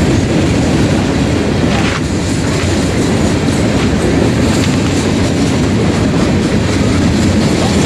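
A freight train of steel gondola cars rolling past, with a loud, steady noise of wheels running over the rails.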